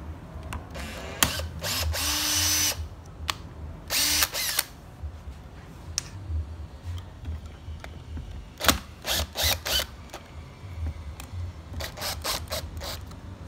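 Makita cordless drill-driver run in short bursts to back out the screws holding a section of a core drill motor's housing. Two longer runs with a motor whine come early, then several quick clicky spurts follow later.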